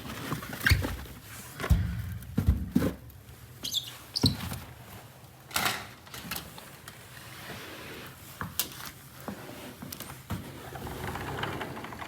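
Irregular thumps and knocks of a person moving about and handling gear, several in the first six seconds and fewer after.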